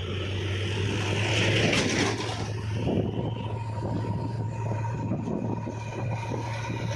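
Diesel engine of a backhoe loader or tractor running steadily with a low hum. A hiss swells about a second in, and there is a brief knock near two seconds.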